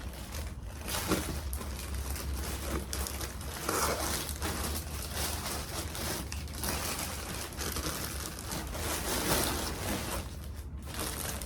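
Plastic packaging rustling and crinkling as it is handled and unwrapped, with irregular crackles.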